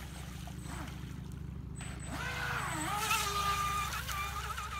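Proboat Recoil 17's brushless electric motor whining as the RC boat is driven: the pitch rises and falls with the throttle early on, then settles into a steady high whine from about halfway as the boat runs at speed through a turn. A steady low rumble runs underneath.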